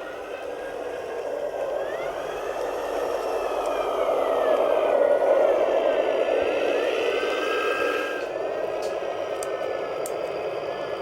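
Small electric motors of an RC model truck whirring steadily, with a thin motor whine that glides up and down in pitch for several seconds from about two seconds in. A few faint ticks come near the end.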